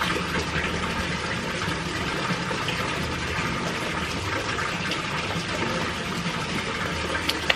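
Steady hiss and sizzle of burger patties, put on frozen, cooking on a hot gas grill's grates, with a few light clicks near the end.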